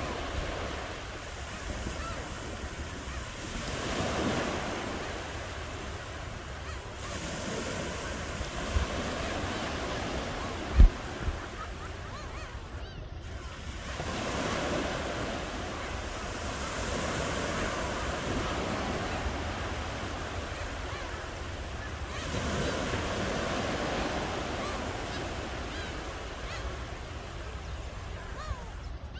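Ocean waves washing onto shore, the surf swelling and fading several times, with wind rumbling on the microphone. Two brief low thumps about a third of the way in, the second one loud.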